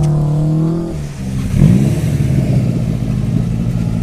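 Off-road SUV engine revving hard while spinning donuts in mud. Its pitch climbs, drops off about a second in, then surges again and holds at high revs.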